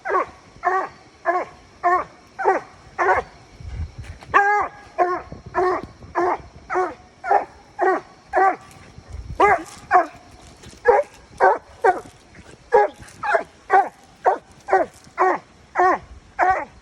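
Coon hound barking over and over at a steady pace, about two barks a second, with a short break about halfway through.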